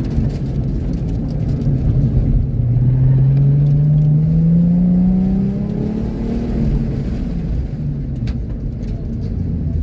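2013 Ford Mustang's 3.7-litre V6 heard from inside the cabin, running in second gear as the car slows off after a hard autocross run. It steadies at low revs, then pulls up gently, its pitch rising between about two and six seconds in before it eases back.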